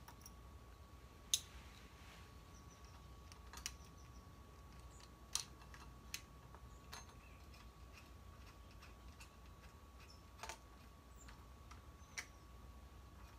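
Sparse, faint clicks and light taps of small metal parts, a homemade headset press of long screw, nuts and washers with the bearing cups, being handled and fitted at a bicycle head tube. The clicks come a few seconds apart, the sharpest about a second in.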